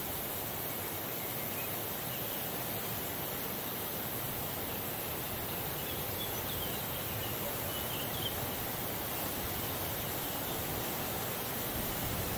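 Summer meadow ambience: a light breeze giving a steady, even hiss, with a few faint high chirps now and then.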